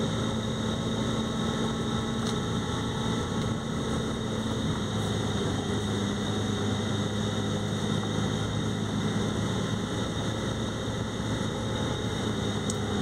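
Engine drone and road noise heard from inside a moving vehicle, steady throughout. The engine's hum drops a little in pitch about halfway through and rises again near the end.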